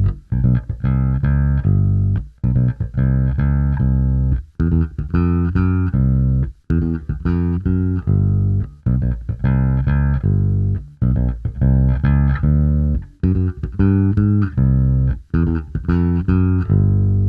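SQOE SPJ400 short-scale electric bass played fingerstyle through its split-coil precision pickup: a continuous line of plucked bass notes, each one ringing briefly before the next.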